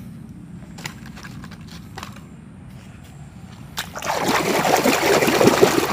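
A hand sloshing and splashing in a pool of water, rinsing a muddy plastic toy. The splashing starts suddenly about four seconds in, after a few faint knocks.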